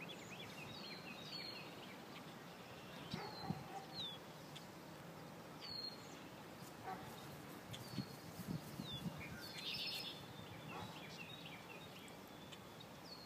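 Birds chirping: short, high calls that slide down in pitch, repeated every second or two, over faint low background noise.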